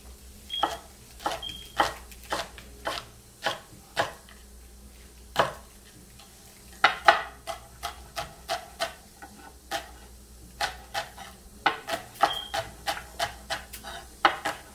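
Chef's knife chopping nopal cactus paddles on a wooden cutting board: irregular knocks of the blade on the board, with quicker runs of chops about seven seconds in and again near the end.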